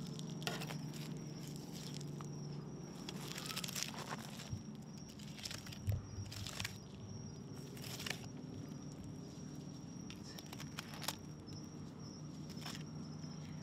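Fillet knife slicing through a kingfish's flesh and skin along the backbone: scattered soft scrapes and clicks, over a steady low hum and a thin steady high whine.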